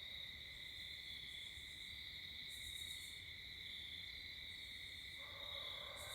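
Faint night chorus of crickets and other insects trilling steadily. About five seconds in, a low, drawn-out howl with several overtones starts suddenly from an unidentified animal, which the recordist suspects is a coyote.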